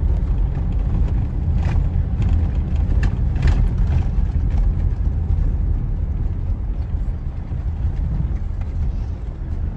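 Car driving on a rough unpaved dirt road, heard inside the cabin: a steady low rumble of engine and tyres, with a few brief knocks about two and three and a half seconds in.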